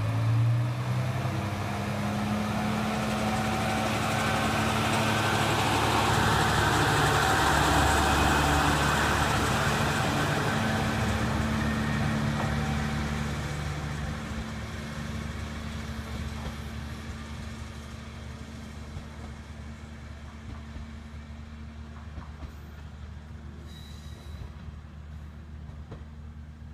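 Kantō Railway KiHa 2400-series diesel railcar (KiHa 2403) pulling away from a station: the diesel engine revs up as it starts off, the engine and wheel noise are loudest about six to ten seconds in, then the sound fades steadily as the railcar draws away down the line.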